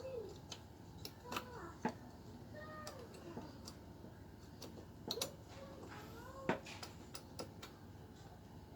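Faint, scattered metallic clicks and taps of brake pads being fitted back into a motorcycle disc-brake caliper, two of them sharper about two seconds in and near six and a half seconds in. Faint short rising and falling tones come and go in the background.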